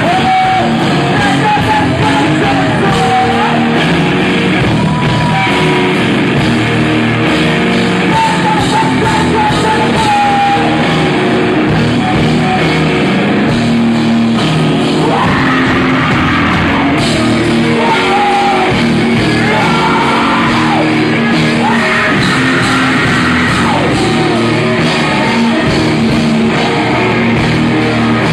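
Rock band playing live with sung vocals, loud and steady throughout.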